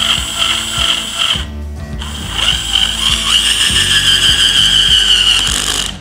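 Cordless PRIMERO drill driver running in two spells with a short stop about a second and a half in. Its motor whine rises and then eases as it drives a screw into hard nara oak at its lowest torque setting, with no pilot hole. It cuts off at the end.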